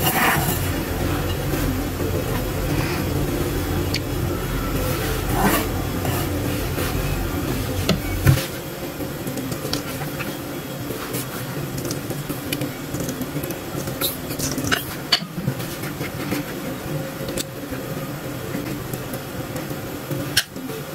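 A low, steady rumble that cuts off abruptly about eight seconds in, with scattered light clicks and knocks of kitchen utensils and dishes being handled.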